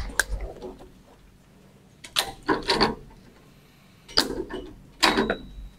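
Plastic ECG electrodes being taken off a patient and handled onto a tray: five short clicks and clatters over several seconds, with quiet gaps between them.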